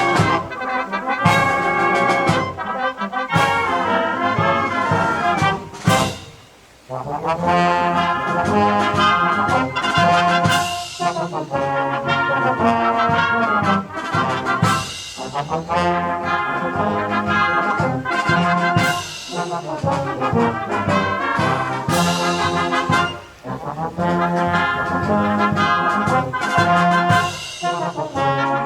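Concert wind band playing a military march, with trombones and trumpets leading over percussion strikes. The music breaks off briefly about six seconds in and dips again a little past twenty seconds.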